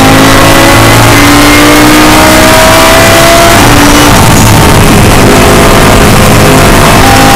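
Audi R8 LMS GT3 race car's V10 engine, heard loud from inside the cockpit, pulling in gear with its note rising steadily. About halfway through, the driver lifts off, the steady note breaks up into a rougher sound and the car slows.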